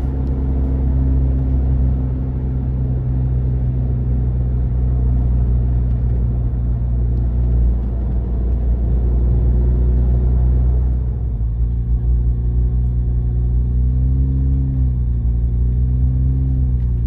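Jeep engine and tyre rumble heard from inside the cabin while driving a paved road. The sound is a steady low drone. After about eleven seconds the engine note changes, then dips and rises again near the end as the Jeep slows.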